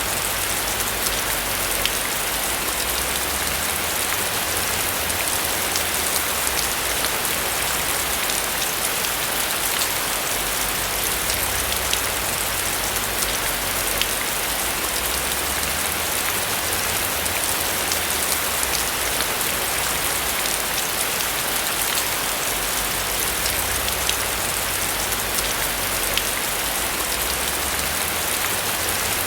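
Steady rain falling on a roof, an even hiss full of fine drop patter, with a low rumble underneath.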